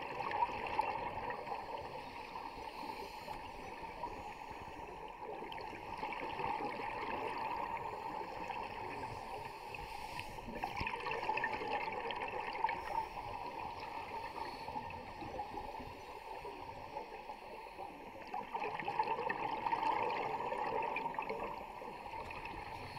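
A scuba diver's regulator breathing underwater: bursts of exhaled bubbles that swell every several seconds over a steady hiss of water.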